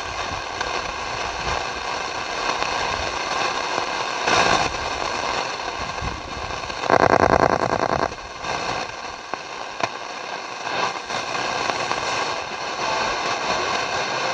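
Shortwave static and hiss from a Zenith Trans-Oceanic Royal 7000 radio's speaker as the dial is tuned across the 19-meter band between stations. About seven seconds in, a louder, rapidly pulsing burst lasts about a second as the dial passes a signal.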